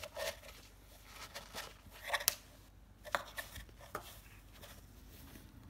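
Scratchy rustling and irregular clicks from cats shifting in a cardboard box, fur and paws brushing against the cardboard; the loudest is a sharp crackle a little over two seconds in.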